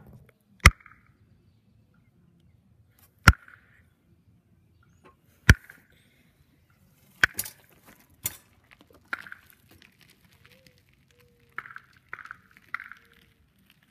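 Sharp clicks or knocks close to the microphone, about five spread over the first nine seconds. Several short higher-pitched chirps follow near the end.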